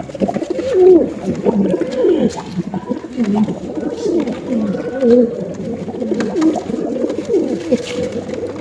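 Several pigeons cooing at once, their low, rolling coos overlapping continuously.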